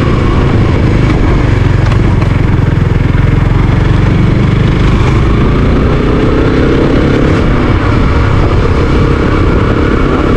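Suzuki GSX-S125's single-cylinder 125 cc four-stroke engine running under way, heard from the rider's helmet camera with wind noise over it; the engine note climbs about six seconds in as the bike accelerates, then levels off.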